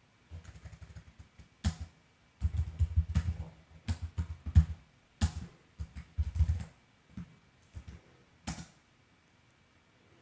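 Keystrokes on a computer keyboard, typed in irregular bursts with short pauses between them as a short command is entered, ending with a single keystroke a little before the end.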